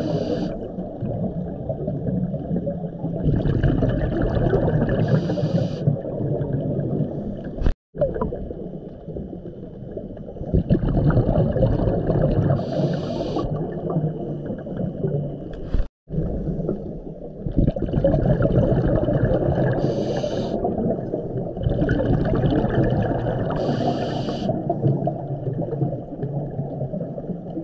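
A scuba diver breathing through a regulator, recorded underwater: a low gurgling rumble of exhaled bubbles with a hiss every few seconds, in slow cycles. The sound drops out for an instant twice.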